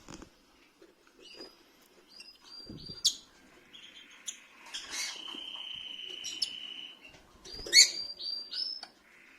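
Rosy-faced lovebirds chirping with short, sharp high calls, the loudest about three seconds in and again near the end, and a steady held note between about five and seven seconds.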